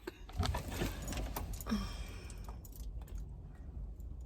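Car keys jangling, a cluster of light metallic clicks and rattles mostly in the first two seconds, over a low steady rumble inside a car.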